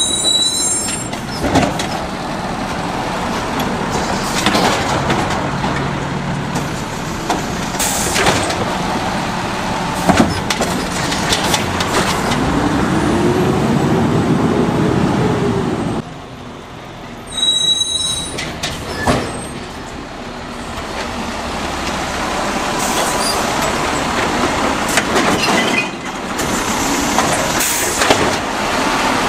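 Automated side-loading recycling truck working curbside carts: its diesel engine runs and revs up and down, the air brakes squeal and hiss as it stops, and sharp clanks and knocks come from its hydraulic arm handling the carts. Near the end the arm lifts a recycling cart overhead to tip it into the hopper.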